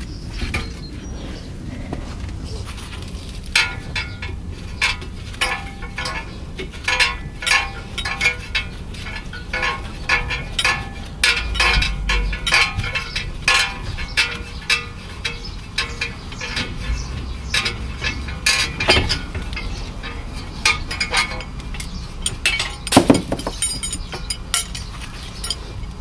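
Irregular metallic clinks and clatters from a front disc-brake caliper and its pads and clips being worked loose and lifted off the rotor, with a louder knock near the end. A steady low rumble lies underneath.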